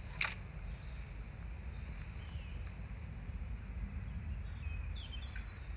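Outdoor background: a steady low rumble, with small birds chirping now and then and one sharp click just after the start.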